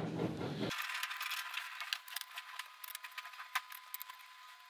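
Fine-tip screwdriver turning out small screws from a TV's sheet-metal T-Con board cover: faint, scattered metal-on-metal clicks and scrapes.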